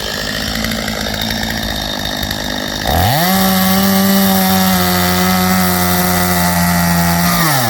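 Two-stroke chainsaw idling, then revved up sharply about three seconds in and held at a steady high full-throttle pitch for about four and a half seconds while limbing a felled pine, before dropping back toward idle near the end.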